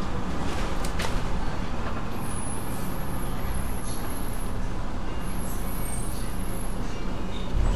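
Double-decker bus's engine running and road noise, heard from inside the upper deck as it drives along, with a low thud near the end.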